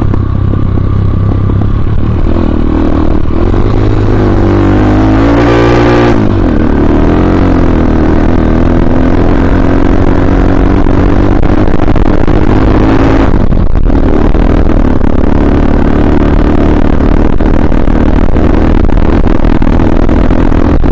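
Motorcycle engine running under way, heard close from the handlebars. Its revs climb for a few seconds and drop about six seconds in. The engine sound breaks off briefly a little past the middle, then carries on steadily.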